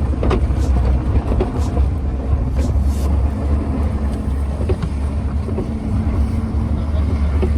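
Mahindra Thar petrol SUV driving in two-wheel drive: a steady low rumble of engine and tyres, with scattered light knocks and rattles.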